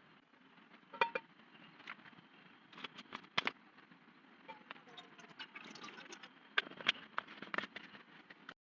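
Rain falling, with a soft steady hiss and irregular sharp taps of drops striking a shelter. The sound cuts out abruptly for a moment near the end.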